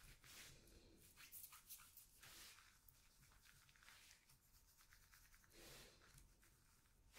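Faint rubbing and sliding of paper cards across a tabletop under gloved hands: soft, uneven scrapes that come and go.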